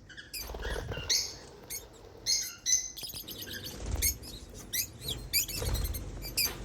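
African lovebirds chirping and squeaking: many short, high-pitched calls in quick succession, with a few low thumps among them.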